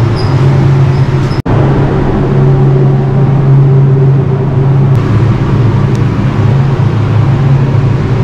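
Paint booth ventilation fans running with a steady low hum and rushing air, broken for an instant about a second and a half in.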